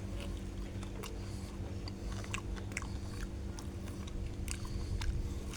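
A person biting into and chewing crunchy flour-coated fried chicken close to the microphone: irregular crisp crunches, a few each second, over a steady low hum.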